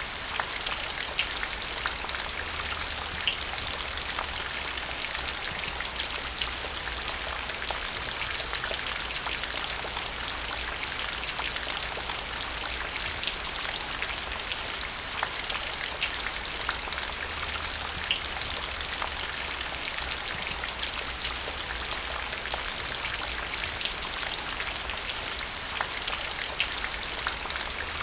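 Rain falling into a puddle: a steady hiss of rain with many individual drops plinking into standing water, scattered irregularly.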